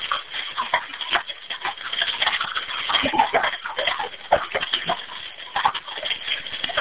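Dense, irregular crackling and knocking heard over an open 911 telephone line from inside a burning house, with no speech.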